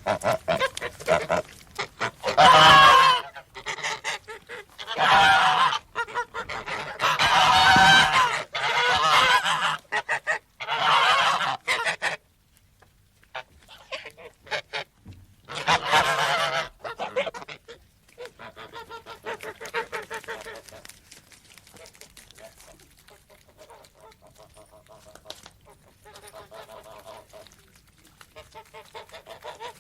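Domestic farm geese honking: loud, harsh calls in repeated bursts, a short pause about twelve seconds in, another loud call, then quieter, rapid repeated honks.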